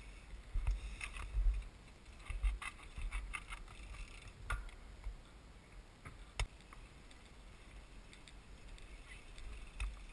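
Wind gusting on an outdoor camera microphone as low, uneven rumbles, with scattered sharp clicks and knocks of handling. The sharpest click comes a little past the middle.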